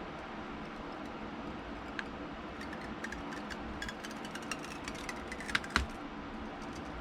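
Small clicks and ticks of a prying tool against the Nintendo Switch Lite's old digitizer glass as the panel is worked loose and lifted, with a few sharper clicks near the end, over a steady background hiss.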